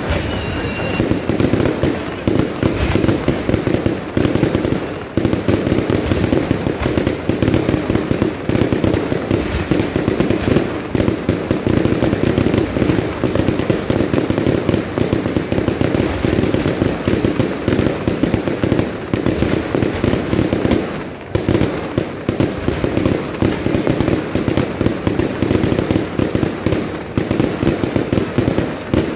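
Fireworks display going off in a dense, almost unbroken barrage of rapid bangs and crackle, with short lulls about five seconds in and again about twenty seconds in.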